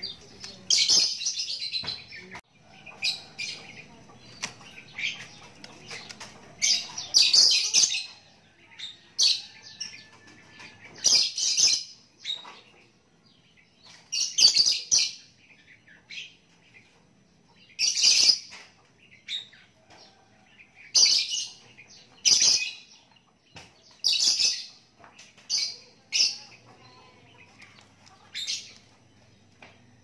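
Young Javan myna calling over and over: short harsh, rasping calls a second or two apart.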